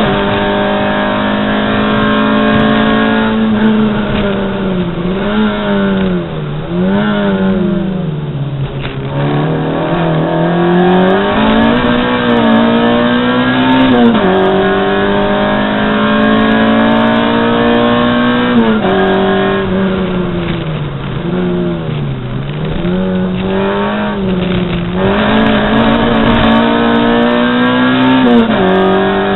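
A race car's engine heard from inside the cabin, running at high revs on the straights. Twice the revs fall and rise in quick swoops, as in braking and shifting down, before settling back to a steady high note.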